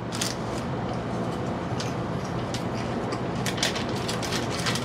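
Plastic bag of popcorn crinkling as a hand takes a handful, then popcorn being chewed, with scattered sharp crunches, over a steady low hum.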